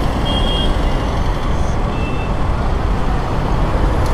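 Steady rumble of road traffic, with two short faint high beeps about a second and a half apart.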